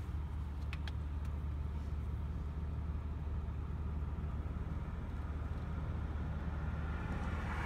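Car driving at a steady speed, heard from inside the cabin: a steady low rumble of road and engine noise.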